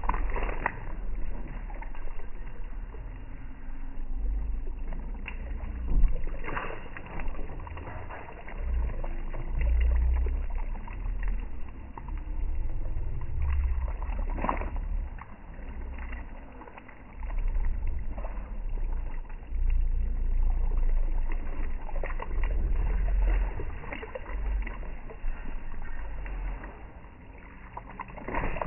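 Low rumbling wind noise on the microphone, coming in uneven gusts, with a few sharp knocks now and then.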